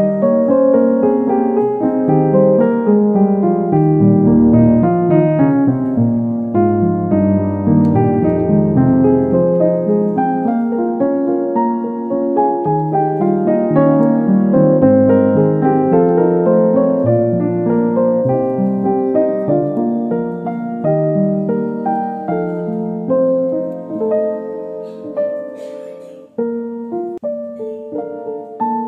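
Background piano music playing a melody of quick, changing notes, dipping briefly near the end before carrying on.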